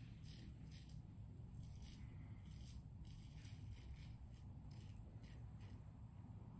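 Wilkinson Classic safety razor scraping through lathered stubble in a quick, irregular series of short, faint strokes.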